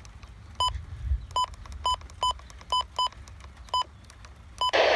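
Short, unevenly spaced electronic beeps at one pitch, about two a second, then a brief loud burst of static-like hiss just before the end.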